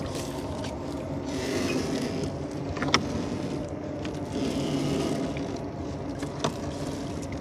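A small boat's engine running steadily, with two sharp clicks, about three seconds in and again near the end.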